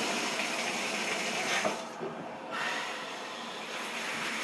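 Shower water spraying from a large round rain-style showerhead (Bidet4me MSH10) and splashing onto the tub, a steady hiss. The high part of the hiss briefly dulls about two seconds in, then comes back.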